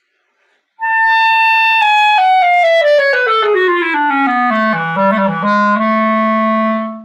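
Buffet Crampon RC Prestige clarinet in A, played solo. It starts about a second in with a held high note, runs down step by step into the low register, then holds a long low note that stops cleanly near the end.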